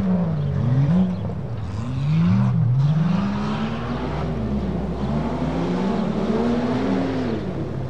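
Off-road Tuff Truck's engine revving up and down several times in quick succession, then holding a higher, steadier pitch before dropping off near the end.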